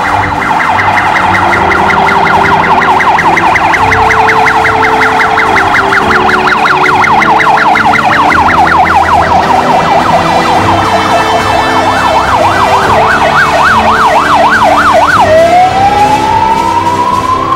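Fire engines' electronic sirens on an emergency run: fast, overlapping yelp sweeps from more than one siren, slowing to about two or three sweeps a second near the end, then switching to a slow rising wail.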